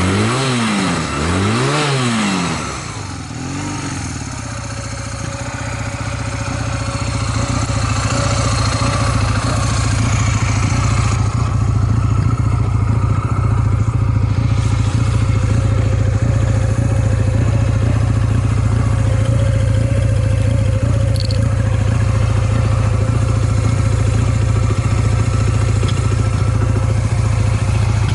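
Honda Rebel 250 (MC13) air-cooled parallel-twin engine, blipped a few times in the first three seconds, then settling into a steady idle. The engine runs evenly, with no abnormal noises.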